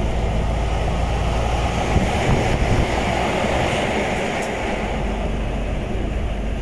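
Steady cab noise of a lorry cruising at motorway speed: a low engine and road rumble under a rushing of wind and tyres. The rush swells midway as another lorry overtakes close alongside.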